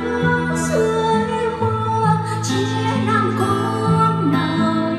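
Karaoke music with guitar and some singing, played through loudspeakers.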